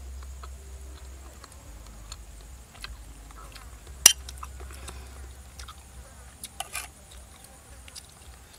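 Scattered light clicks and clinks of utensils against crockery, with one sharp clink about four seconds in and a few more near the end.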